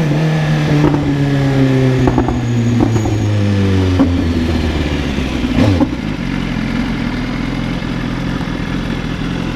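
Motorcycle engine winding down steadily in pitch for about six seconds as the bike slows. It then settles into a steady, lower running sound.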